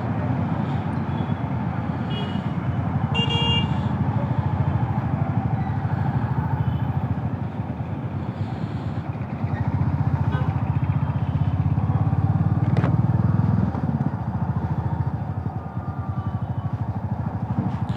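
Motorcycle engine running steadily under way, with the low pulsing of its firing throughout and a little more throttle around the middle. A short horn beep sounds about three seconds in.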